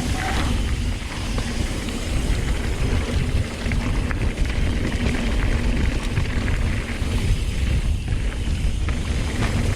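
Wind rushing over the microphone as a mountain bike rolls down a dirt jump trail, with short rattles and clicks from the bike.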